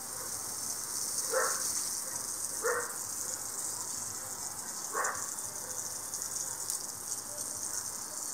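Water spraying from a garden hose onto grass: a steady high hiss, broken by three short louder sounds about a second and a half, three and five seconds in.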